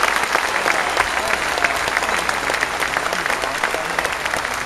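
A large crowd applauding: dense, steady clapping from many hands, easing off slightly near the end, with a few scattered voices among it.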